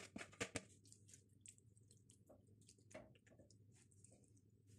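Near silence, with a few faint soft clicks and squishes in the first half second and one more about three seconds in, from wet chicken masala being scraped from a container and spooned onto rice in a steel pot.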